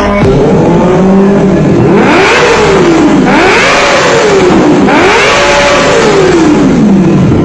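Kawasaki ZX25R's inline-four engine being revved. It holds steady at first, then its pitch sweeps up and down in about three long rises and falls.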